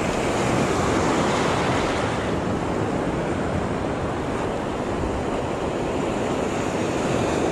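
Ocean surf washing and breaking around the shallows in a steady rush, with wind on the microphone.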